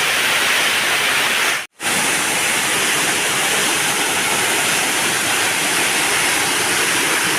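Small waterfall rushing steadily close by, water falling down three or four rock steps. The sound cuts out completely for a split second about one and a half seconds in.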